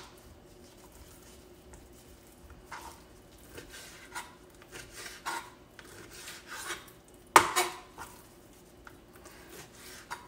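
Kitchen utensils and cookware being handled: scattered light knocks and scrapes, with one louder clank about seven seconds in.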